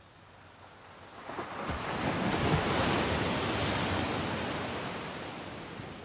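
A wave washing onto a sandy beach: a rush of surf that swells up over about a second, peaks, then slowly fades away.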